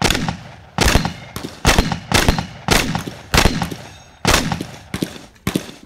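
Shotgun firing a rapid string of about nine shots, roughly one every half second to second, each crack trailing off in a short ring.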